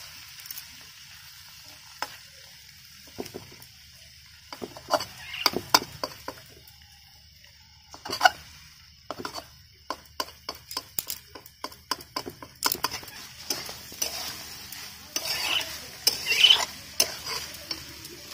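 Metal spatula stirring vegetables in a kadai, with irregular clinks and scrapes against the pan, over a steady sizzle of frying.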